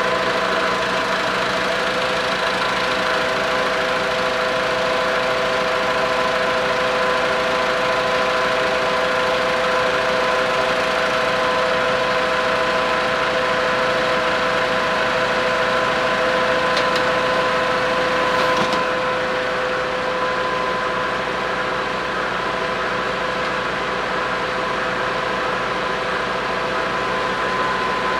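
1928 Graham-Paige 614 side-valve engine turning over steadily on a stand, its valve gear and timing chain running with a continuous mechanical whir and clatter.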